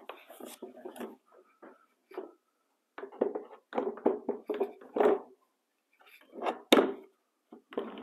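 Hard plastic knocking and rattling as the powerhead lid of a Ridgid HD1640 shop vacuum is set onto its drum and worked into place, with one sharp click near the end as a lid latch snaps shut.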